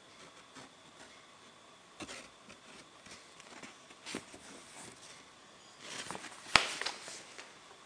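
Faint handling noise of a paper leaflet being held and moved: light rustles and scattered small clicks, with one sharp tap about six and a half seconds in.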